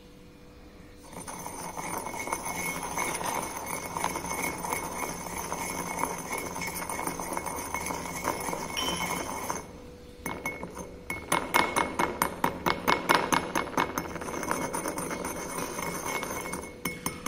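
Glass pestle grinding powder in a porcelain mortar. It starts with steady scraping for about eight seconds, stops briefly, then turns to quicker rhythmic strokes of about five a second, with glass clinking on porcelain.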